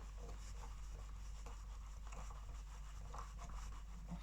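Small screwdriver driving a screw back into a boiling-water tap's handle, with faint scratching and light clicks of metal on metal.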